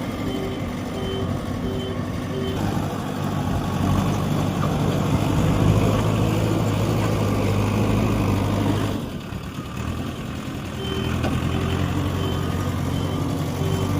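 Heavy diesel construction machinery running, its engine louder for a few seconds mid-way and then easing off. A reversing alarm beeps steadily at the start and again near the end.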